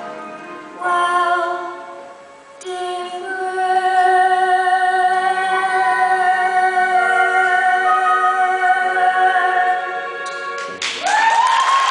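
A young girl singing the last phrases of a musical-theatre solo, ending on one long held note. Audience applause breaks out near the end.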